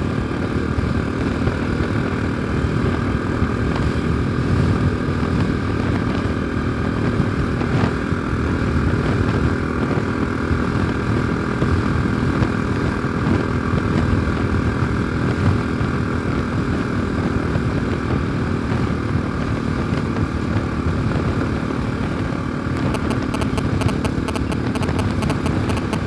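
Single-cylinder Bajaj Pulsar NS200 motorcycle engine running at a steady pace while riding, at an even level with no revving.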